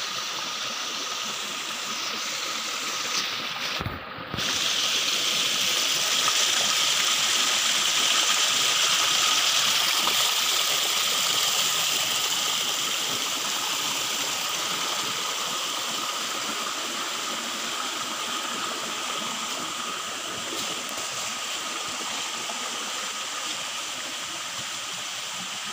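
Shallow forest creek running over rocks: a steady rushing of water. It is loudest just after a brief dropout about four seconds in and slowly eases off later.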